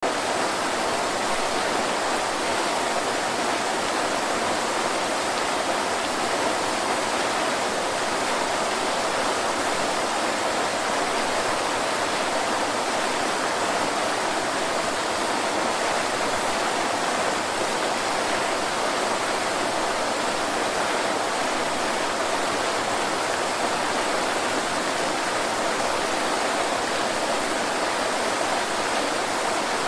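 Waterfall: water falling and splashing in a steady, even rush with no breaks.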